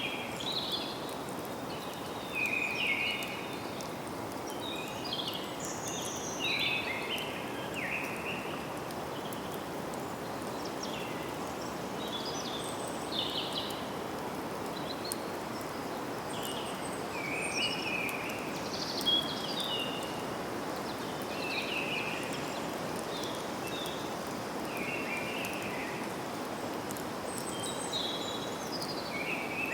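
Forest ambience: several birds chirping and calling in short phrases throughout, over a steady background hiss.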